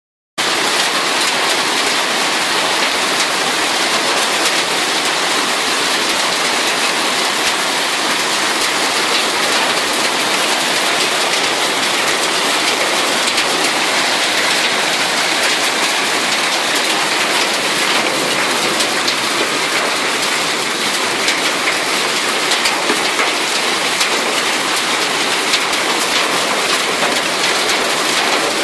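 Hailstorm: hailstones falling heavily, a dense, steady clatter of countless small hits on the ground and the farm buildings. It cuts in abruptly right at the start.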